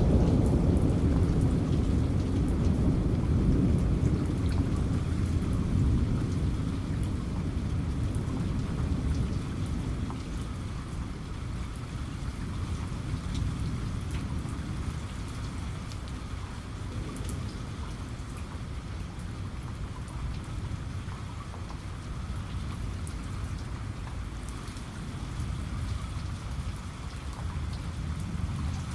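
Steady rain with scattered drops pattering, under a low rumble of thunder that fades away over the first ten seconds or so. A faint rumble swells again near the end.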